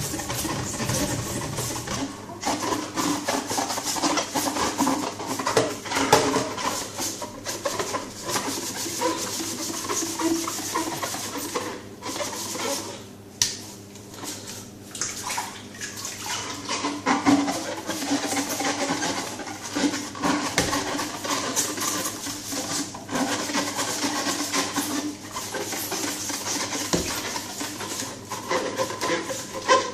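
Kitchen tap running into a stainless-steel sink while a clear plastic protein-skimmer tube is rinsed under the stream and scrubbed with a scouring pad, water splashing through the tube. The flow goes quieter for a moment about halfway through.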